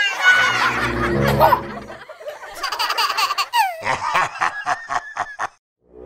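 A child laughing, with a run of short repeated laughs in the second half that cuts off just before the end. Light background music plays under the first two seconds.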